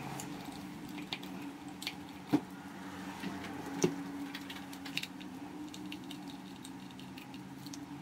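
Small screws being taken out of the back of a VooPoo Drag box mod with a precision screwdriver: scattered light metallic clicks and taps, with two sharper clicks about two and a half and four seconds in, over a faint steady hum.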